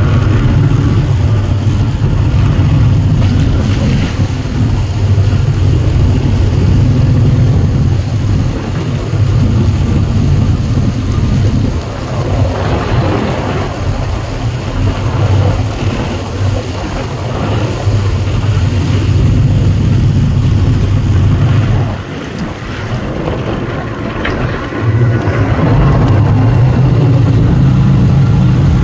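Personal watercraft engines running at speed across choppy water, a steady low drone with wind buffeting the microphone and water rushing. The drone eases briefly about three-quarters through, then picks up again as the ski passes close.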